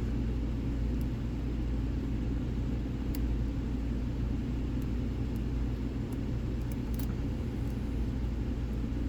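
A steady low background rumble and hum, with a few faint, scattered clicks of a lock pick working the pin stacks of a pin-tumbler lock.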